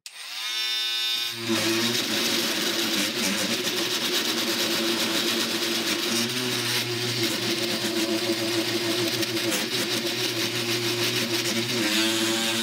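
Angle grinder spinning up with a rising whine, then grinding into a knife's metal pommel with a harsh, steady hiss over the motor for about ten seconds. Near the end it lifts off the metal and runs free.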